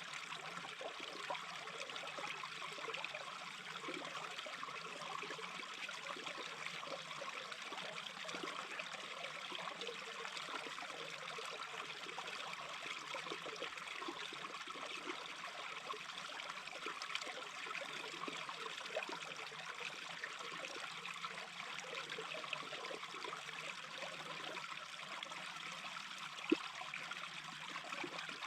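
Small brook babbling steadily, an even rush of running water, with one brief sharp click near the end.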